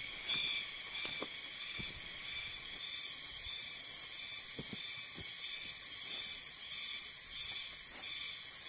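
Steady high-pitched drone of insects, with a few faint rustles and soft knocks as someone walks over and kneels on a nylon poncho spread on the grass.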